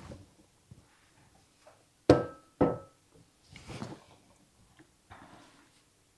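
A utensil knocked twice, about half a second apart, against the rim of a container to shake off cake batter, each knock ringing briefly; softer scraping of batter follows.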